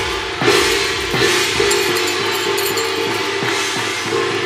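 Temple-procession percussion: a hand-held gong and cymbals struck in an uneven beat, a crash every half second or so, each strike ringing on into the next.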